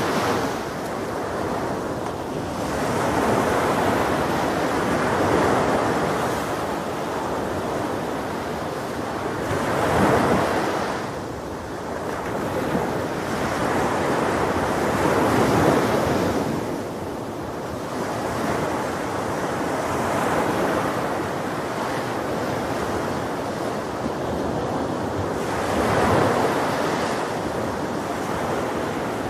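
Ocean surf breaking on a beach, waves swelling and washing back every few seconds, with wind buffeting the microphone.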